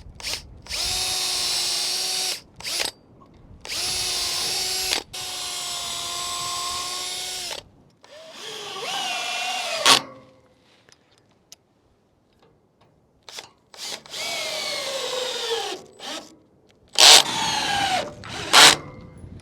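Power drill running in about six short bursts of a second or two, with a quiet pause of a few seconds midway. In the later bursts the whine drops in pitch as the motor comes under load, as when drilling holes and driving screws into wood.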